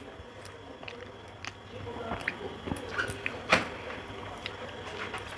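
Eating sounds: fingers pinching and mixing rice and spinach ghonto on a metal plate, with small scattered clicks and wet chewing sounds, one sharper click about three and a half seconds in.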